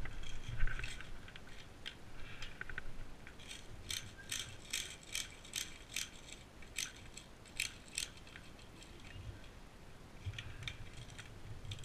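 Airsoft magazine being handled and loaded with BBs: a run of about a dozen small, sharp plastic clicks, roughly three a second, after a few seconds of rustling and a knock near the start.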